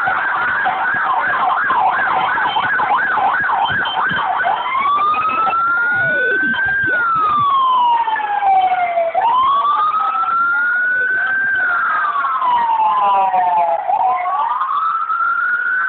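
Emergency vehicle siren in a fast yelp, about three cycles a second, switching about four seconds in to a slow wail that rises and falls three times, over the noise of passing traffic.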